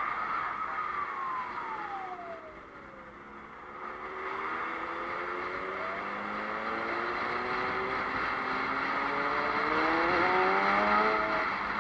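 Motorcycle engine heard from the rider's own bike while filtering between lanes of traffic: the engine note falls as it slows over the first few seconds, then climbs steadily as it speeds up again, over a steady rush of wind and road noise.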